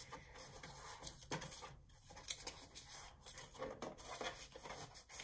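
Faint rustling and rubbing of scored patterned paper being folded into a box and creased along its score lines with a plastic bone folder.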